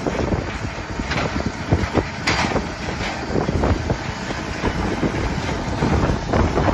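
New Holland tractor engine running under load as it tows a big baler past at close range, with the baler's machinery knocking and rattling irregularly; the noise grows a little louder as it passes.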